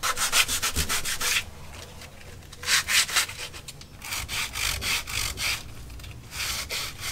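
Rough hand sanding of a wooden form with sandpaper: quick back-and-forth strokes, about seven a second, in four short spells with brief pauses between.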